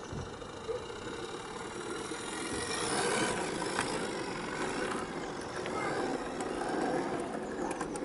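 16 mm scale garden railway railcar running past on its track. The whirr of its motor and gear drive grows louder as it passes close, about three to four seconds in, with a few light clicks from the wheels on the rails in the second half.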